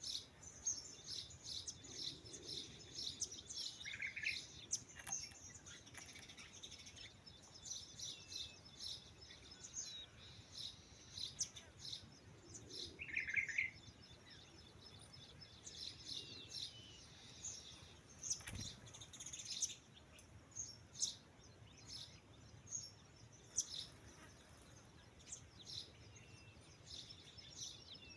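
Small birds chirping and twittering, a busy run of short high-pitched calls overlapping without pause, fairly faint. A single soft knock sounds about two-thirds of the way through.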